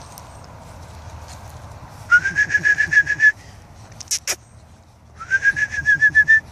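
Two bursts of a loud, rapidly warbling whistle, each about a second long and rising slightly in pitch at its start, used to call dogs. A brief swish falling in pitch comes between the bursts.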